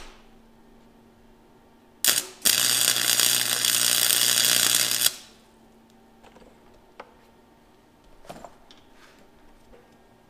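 Wire-feed (MIG) welding arc laying a practice bead on 3/16-inch steel bar. A brief strike comes about two seconds in, then a steady crackle for about two and a half seconds, with a low hum under it, cuts off sharply. A few light clicks follow.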